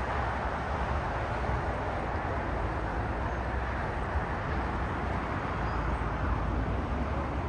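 Jet aircraft engines heard across an airfield: a steady low rumble with an even rushing noise over it, without distinct events.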